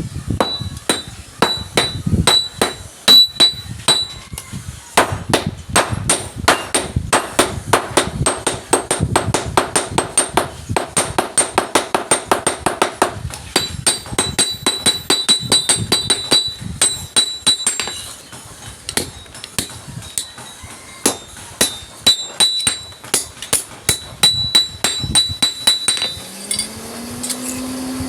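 Hammer blows on metal at the anvil, each strike followed by a bright metallic ring, as the blade of a small hand-forged coconut grater is shaped. The blows come several a second and evenly through the middle, then more sparsely. A low hum rises in pitch and holds steady near the end.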